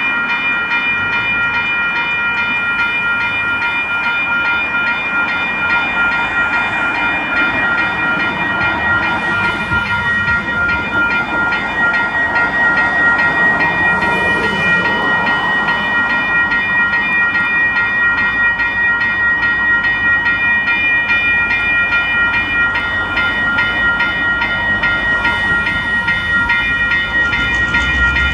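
Railway level-crossing warning bells ringing steadily as a train approaches. The low rumble of the locomotive's engine comes in near the end.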